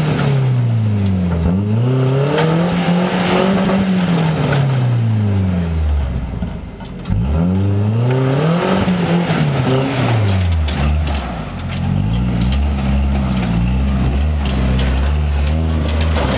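Toyota off-road truck's engine revving up and down repeatedly under load, with a short drop about six and a half seconds in before it revs again sharply, then holding steadier with a wavering pitch near the end.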